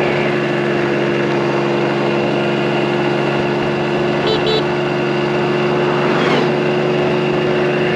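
2022 Mondial Turismo 80cc scooter engine running steadily at cruising speed, under a constant rush of wind and road noise. A short double chirp sounds about halfway through.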